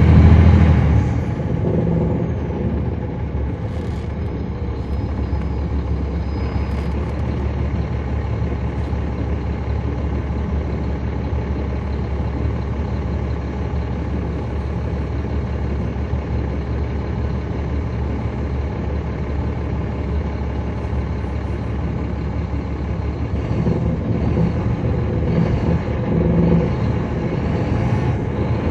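Caterpillar C13 ACERT inline-six diesel engine of a 2009 NABI 40-foot transit bus, heard from inside the bus, running with a steady low drone. It is louder for about a second at the start and swells again a few seconds before the end.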